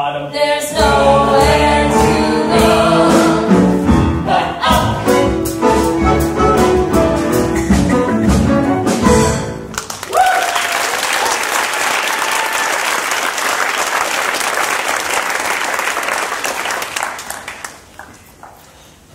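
Cast and pit orchestra finishing a musical number with a held final chord, followed by audience applause beginning about ten seconds in and dying away near the end.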